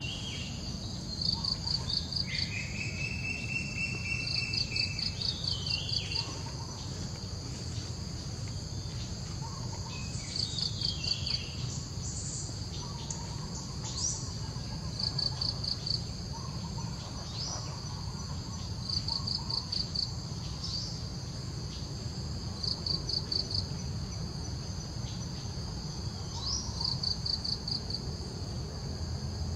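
Insects chirping outdoors: short bursts of rapid high pulses repeating every three to four seconds over a steady high-pitched insect drone, with a few bird calls.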